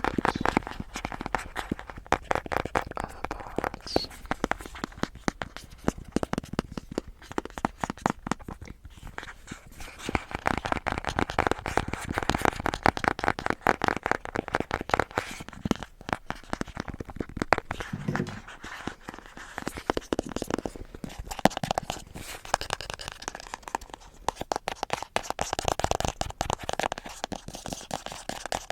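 A box handled close to the microphone: dense, rapid crackling and crinkling clicks, easing off briefly a couple of times.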